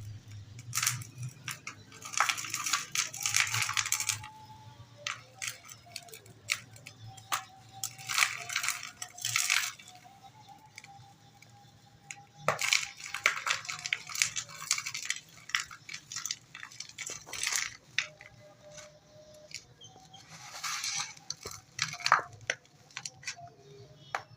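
Dry dirt lumps crunching and crumbling by hand in repeated bursts of sharp, gritty crackles, with loose grains pattering down between them.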